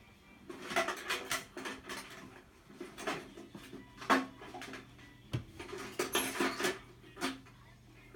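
Irregular clinks, clatter and rustling of small metal tools and parts being handled, as in rummaging for a brass bristle brush, with a few sharper knocks.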